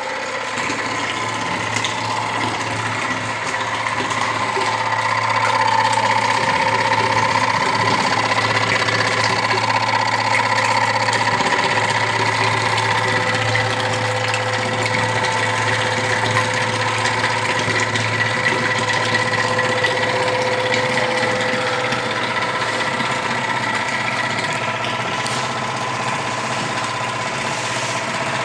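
Electric motor of a screw-type barrel pump running steadily, a continuous hum and whine made of several steady tones, as the pump draws a thick liquid out of the drum.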